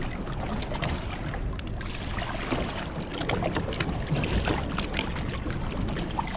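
Water sloshing and splashing against a boat's hull as a large fish is held in the water by its mouth to revive it before release, with many small irregular splashes from the fish and the hand.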